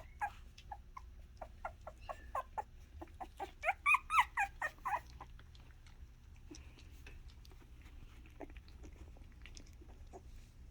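Miniature Australian Shepherd puppies yipping and squealing in a quick run of short high-pitched calls, loudest about four seconds in, then dying down to faint scattered sounds.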